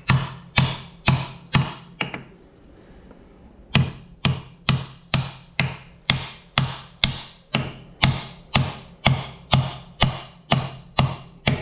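Plastic dead blow hammer striking a block of wood on a piston top, tapping the piston through a ring compressor into the cylinder bore of a John Deere two-cylinder engine. Even blows at about two a second, with a short pause about two seconds in before the tapping picks up again.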